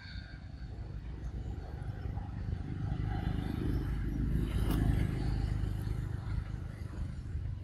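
Low rumble of a passing motor vehicle, swelling to a peak about five seconds in and then fading.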